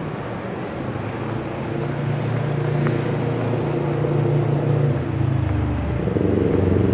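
Road traffic: a motor vehicle's engine running close by as a steady low hum, growing louder about two seconds in and turning deeper near the end.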